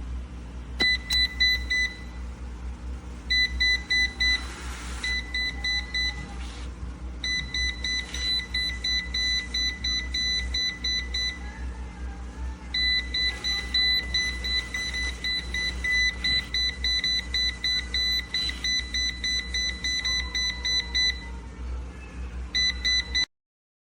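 Electronic alarm beeping: a high beep tone pulsing rapidly in runs of a few seconds with short gaps between them, over a steady low hum.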